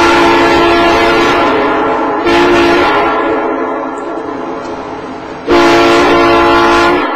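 Locomotive air horn sounding a chord of several notes in blasts: a long blast that gives way about two seconds in to a short one that fades, then another loud blast from about five and a half seconds in that cuts off sharply just before the end.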